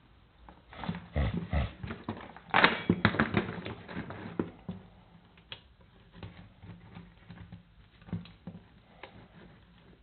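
Steel Duke foothold trap being worked with pliers: its jaws, dog and pan rattle and clink against each other and the bench. A flurry of metal clicks and knocks with a few dull thuds runs from about one to four and a half seconds in, then only scattered clicks follow, as the dog is bent to set the pan level at the night latch.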